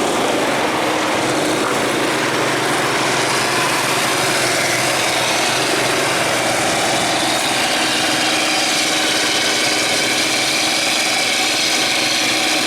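Heavy machinery's diesel engine running steadily at a constant speed, a continuous mechanical drone.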